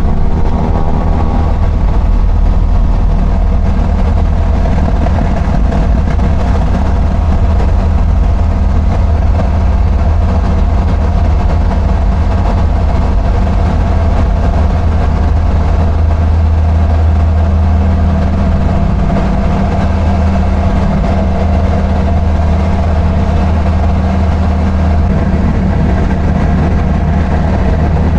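TL Ultralight Stream microlight's engine and propeller at takeoff power, heard from inside the cockpit. The pitch rises in the first second as power comes up, then holds steady through the takeoff roll and climb-out.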